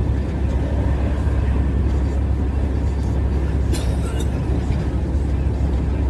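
Steady low rumble of a truck's engine and road noise heard inside the moving cab, with two brief sharp clicks about four seconds in.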